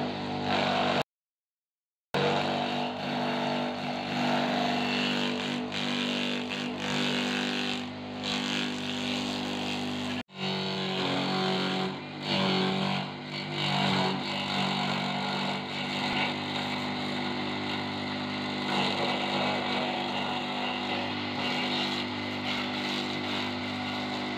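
A small homemade forage chopper, driven by an electric water-pump motor, runs with a steady hum while green leaves and stems are fed in by hand and shredded. The sound drops out for about a second near the start and changes abruptly about ten seconds in.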